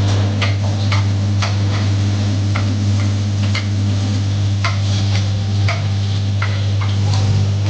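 Onions frying in hot oil, with scattered sharp crackles and pops, about one or two a second, over a steady low hum.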